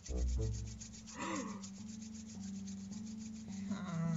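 Pencil scratching on paper in quick, even strokes over a steady low hum, with a low rumble at the start and two short sliding pitched sounds, about a second in and near the end.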